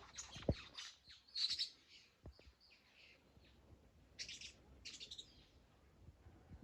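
Birds chirping in quick clusters of short high notes, several times over. Two brief low thumps, the first about half a second in and louder than the chirps, the second a couple of seconds in.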